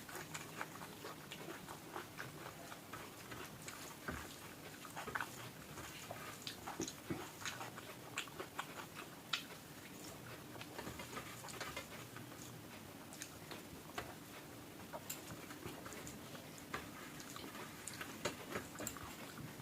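Close-up eating sounds of rice and curry being eaten: chewing with irregular small wet smacks and clicks of the mouth.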